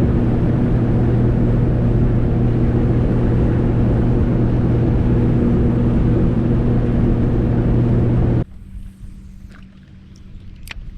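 Bass boat's outboard engine running steadily at speed, with wind and water noise and a steady low hum. The sound stops abruptly about eight seconds in, leaving a faint low hum and a single sharp click near the end.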